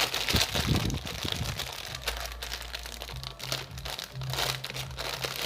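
Packaging crinkling and rustling as it is handled: a dense, continuous crackle that starts suddenly.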